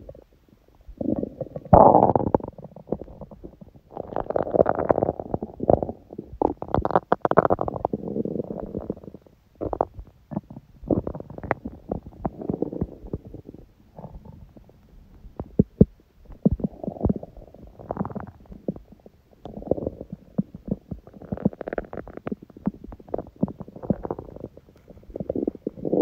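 An empty stomach growling from hunger: a string of irregular gurgling rumbles and short pops, coming and going with brief pauses.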